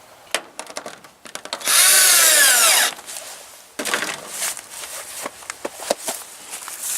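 A small power-tool motor whirs for about a second, its pitch falling, among scattered clicks and rustling.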